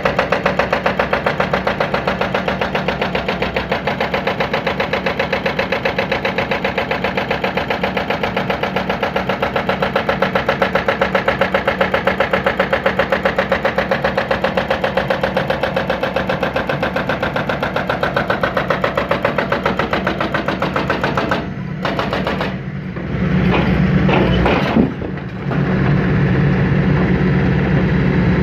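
John Deere 160C excavator's diesel engine running with a fast, even pulsing. About three-quarters of the way through the sound dips and breaks up briefly with a few sharp strokes, then settles into a steadier, deeper engine note.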